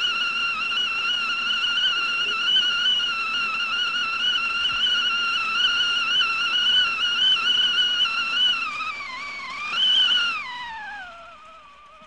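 Whistling kettle (tea pot) whistling steadily at the boil, a high tone that wavers slightly. Near the end the pitch sags, rises once more briefly and then falls and fades as the whistle dies away.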